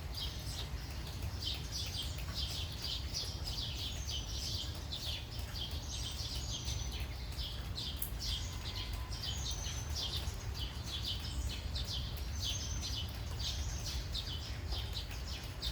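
Birds chirping continuously, many short quick calls overlapping, over a steady low background rumble.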